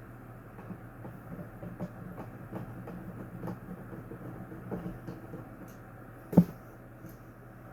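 Handling noises from a box fan being worked on: a run of light clicks and knocks, with one sharp knock about six seconds in, over a steady low hum.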